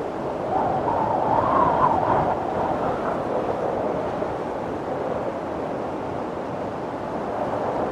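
Wind blowing steadily, with a wavering howl that swells and rises in pitch about a second or two in, then eases back.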